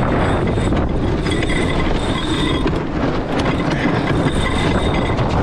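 Steady rush of wind and breaking water along a J120 sailboat's hull in a strong breeze, with rapid clicking of a cockpit sheet winch being worked during a tack and a high squeal that comes and goes.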